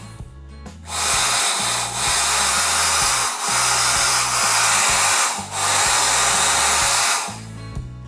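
Clairol hair dryer blowing onto wet bangs: a loud, steady rush of air that starts about a second in, dips briefly a few times and stops shortly before the end.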